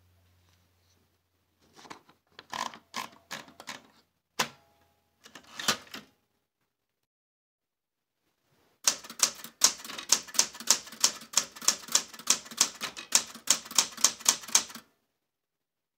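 Smith-Corona Super Sterling manual typewriter: a few scattered clicks and one sharp clack in the first six seconds, then a fast run of typing, its typebars striking the paper about four times a second, for about six seconds.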